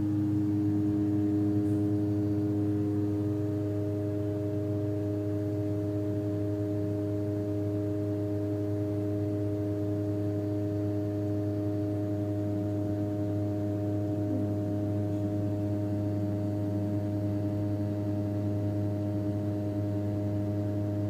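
Airplane engine running at a steady drone: a constant hum of several fixed tones over a low rumble, with no change in pitch or level.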